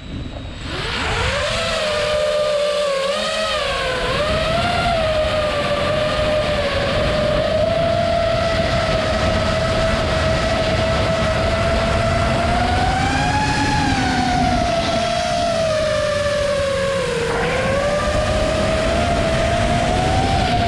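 The brushless motors and propellers of an XBEE LB1 5-inch FPV quadcopter spin up in the first second, then whine steadily in flight, heard from the onboard GoPro. The pitch of the whine rises and falls smoothly with the throttle several times.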